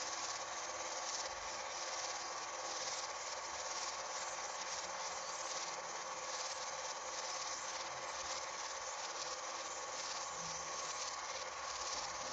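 Film projector running: a steady mechanical whir with a faint fine clatter of the film advancing.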